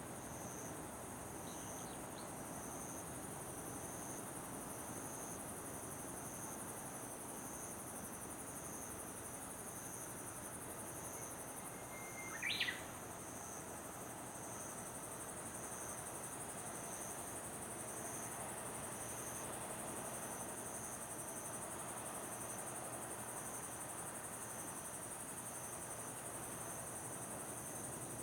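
Insects chirping in a steady chorus: a continuous high shrill with an evenly pulsing trill under it. A single short chirp cuts in about halfway through.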